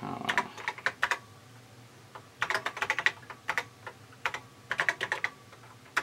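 Keys clicking on a TRS-80 Model III keyboard as a line of code is typed: three quick runs of keystrokes with short pauses between them.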